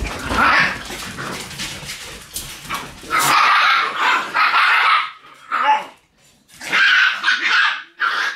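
Shiba Inu puppies play-fighting, growling and yapping in several short bursts, after about three seconds of rustling.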